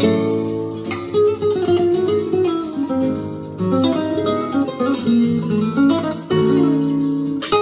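Plucked guitar music in a flamenco style played back through a pair of Pioneer HPM-40 speakers driven by a Scott 2055-A amplifier.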